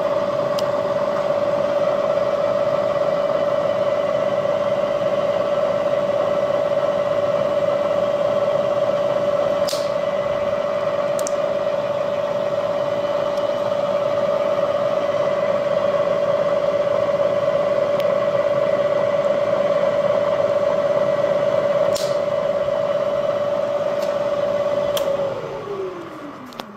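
Bridgeport Series I 2J variable-speed milling head, its 2 hp motor and spindle running at a steady speed with a steady whine, with a few light clicks. Near the end the whine drops steeply in pitch and fades as the spindle winds down.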